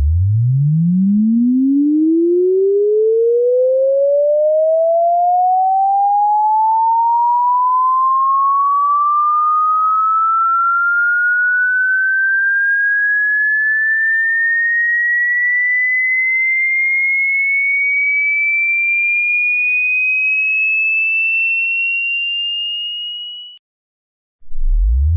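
Electronically generated sine-wave tone sweeping slowly upward from a deep hum to a high whistle, climbing fast at first and then more gradually, and cutting off abruptly after about 23 seconds. After a second of silence a new sweep starts again from the bottom near the end.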